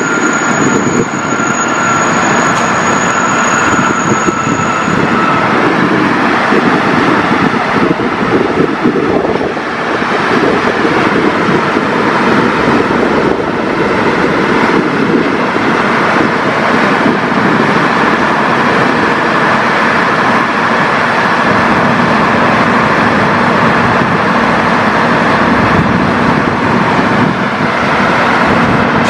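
Steady, loud running noise of a rail-laying machine's engines mixed with road traffic. A thin high whine fades out in the first few seconds.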